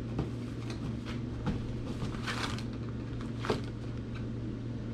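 Packaged food items being handled and set down on a table: light clicks and knocks, a short rustle of packaging about two seconds in and a sharp tick near three and a half seconds, over a steady low room hum.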